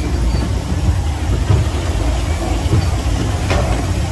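Steady low mechanical rumble of a wild mouse roller coaster ride, with a short rattle about three and a half seconds in.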